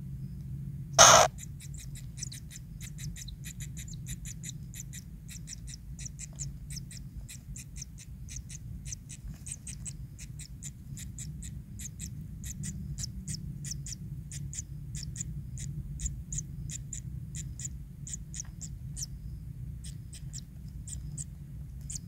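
Kingfisher nestlings begging in the burrow: a long run of short, high-pitched ticking chirps, several a second, over a steady low hum. A single loud, sharp crack comes about a second in.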